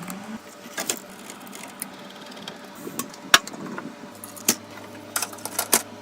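Computer parts being handled and fitted: irregular sharp clicks and light knocks of hard parts, the loudest a little past halfway, with a cluster near the end.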